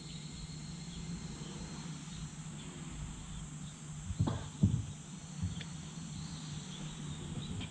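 Quiet outdoor ambience: a low steady hum with faint insect chirping, and two soft thumps about four seconds in.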